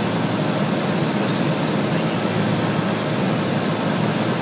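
Single-engine Cessna 182's piston engine and propeller droning steadily with airflow noise, heard from inside the cockpit during the approach to land.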